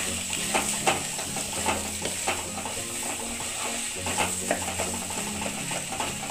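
Spatula stirring and scraping a spiced potato, carrot and pea filling around a kadai, about two scrapes a second, over a light sizzle of the filling frying in oil.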